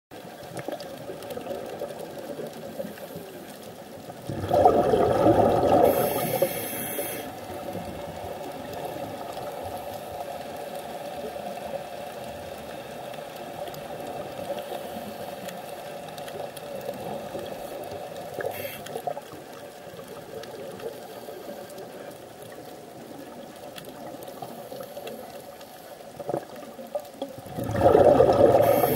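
Underwater recording: a steady faint hiss and hum, broken twice by a loud rush of bubbles from a diver's exhaled breath, about four seconds in and again near the end.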